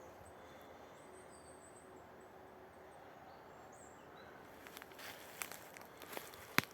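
Faint high bird chirps over a quiet forest background, then footsteps on the forest floor starting about four and a half seconds in.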